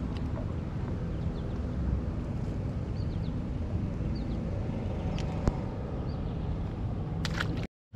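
Steady low rumble of wind on the microphone, with a few faint bird chirps above it. There is a sharp tick about five and a half seconds in, and the sound cuts out briefly near the end.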